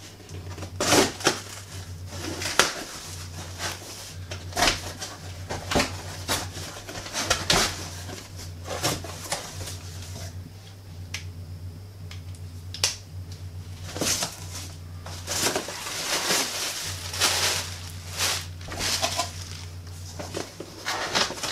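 Cardboard shipping box being opened by hand: irregular rips of packing tape, scrapes and knocks of the cardboard flaps, with a steady low fan hum underneath.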